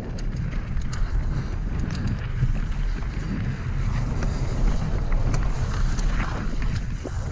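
Mountain bike descending a loose gravel and dirt trail at about 30 km/h: wind rumbling on the camera microphone, tyres rolling over gravel, and scattered clicks and rattles from stones and the bike.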